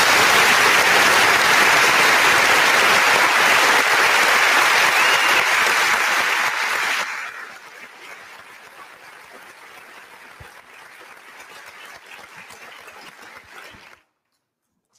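Audience applauding loudly for about seven seconds, then dying away to a much quieter patter and room noise, which cuts off about a second before the end.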